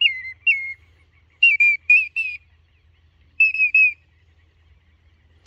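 Duck whistle call blown in short series: clear whistled notes that start high and drop, in groups of two and three, ending about four seconds in.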